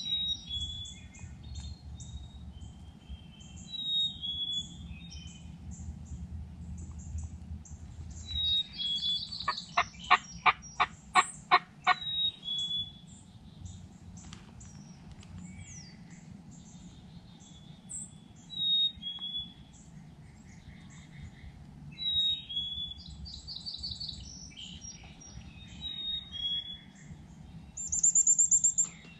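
Songbirds singing in spring woodland, many overlapping high chirps and trills. A little before halfway, a loud run of about eight evenly spaced calls stands out, and near the end comes a loud shrill note.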